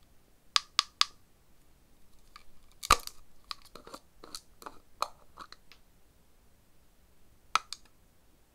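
Long nails clicking against a plastic gel jar, then the jar's screw lid being twisted open: a sharp crack about three seconds in and a run of crackly plastic clicks. Two more clicks come near the end.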